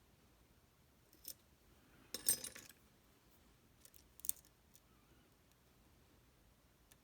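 Small metallic clicks from a Tesa TK100 lock and the tools working it. There is a single click, then a short rattling scrape about two seconds in that is the loudest sound, then a couple more clicks near the middle.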